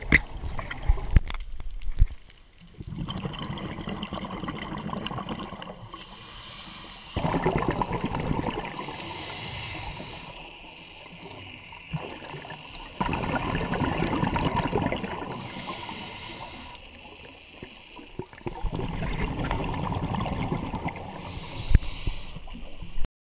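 Scuba diver breathing through a regulator underwater: bubbly gurgling surges of exhaled air lasting a few seconds each, about every five or six seconds, with quieter hissing stretches between. The sound cuts off abruptly near the end.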